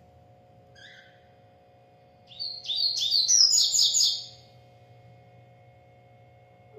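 Double-collared seedeater (coleiro) singing: a short call about a second in, then a fast phrase of rapid, high, chattering notes lasting about two seconds.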